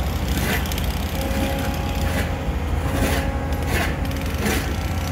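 Excavator diesel engine running steadily while an APC Quad hydraulic pile cropper works a concrete secant pile, with several short grating scrapes of concrete as the cropped pile top breaks free and is lifted.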